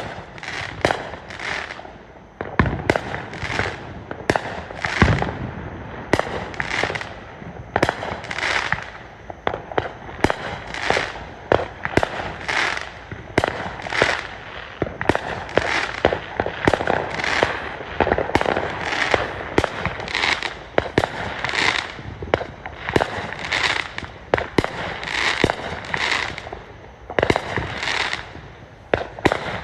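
Fireworks going off in rapid succession: a steady stream of bangs, about one to two a second, each followed by a crackling fizz, with two deeper booms about three and five seconds in.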